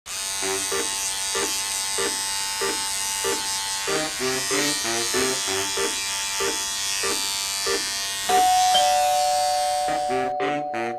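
Electric hair clippers buzzing steadily, under a soft music track of short repeating plucked notes; a held chord comes in about eight seconds in.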